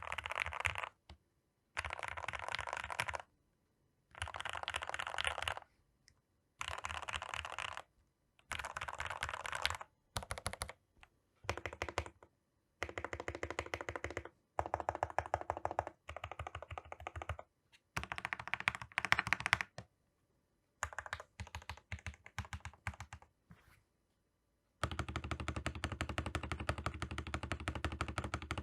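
Feker IK75 mechanical keyboard with Gateron Milky Yellow Pro linear switches being typed on: rapid runs of keystrokes in bursts of a second or two, separated by short pauses, with a longer run near the end.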